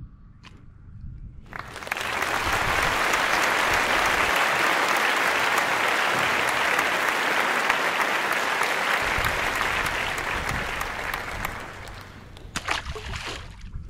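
Applause, many hands clapping in a dense patter; it swells up about a second and a half in, holds steady, and fades away near the end.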